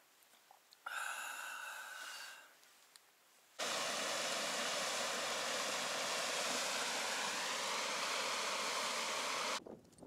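River water rushing over a low weir, a steady hiss lasting about six seconds that starts and stops abruptly. Before it, about a second in, a brief faint exhalation.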